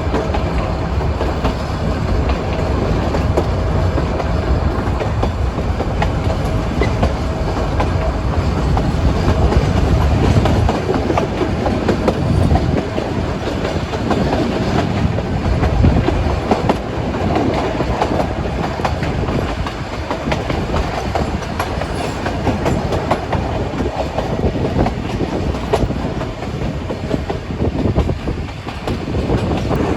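Nilgiri Mountain Railway toy train carriage running along the track, with a steady rumble and the wheels clacking over the rail joints.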